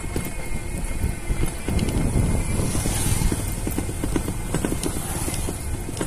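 Steady low rumble of a vehicle travelling along an unpaved road, with wind buffeting the microphone.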